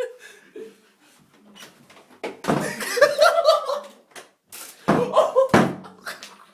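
A bedroom door being yanked and knocked against its handle, which is tied shut with a dressing gown: several loud knocks and rattles starting about two seconds in, with voices and laughter mixed in.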